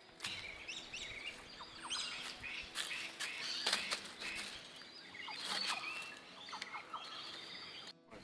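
Small birds chirping and calling in riverside bush: many short, high calls overlapping, with a few sharp clicks among them.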